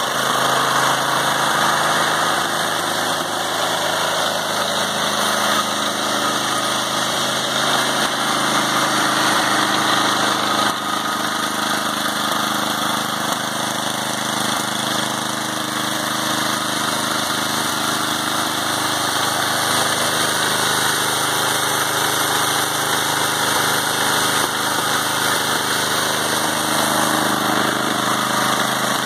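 Husqvarna 105030BE snowblower's 10.5 hp Tecumseh single-cylinder engine running steadily with the throttle up, just after a cold start on the electric starter.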